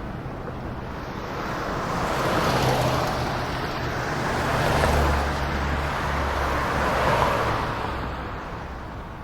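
A road vehicle passing by: engine and tyre noise swells over a few seconds and fades away, over a steady low hum.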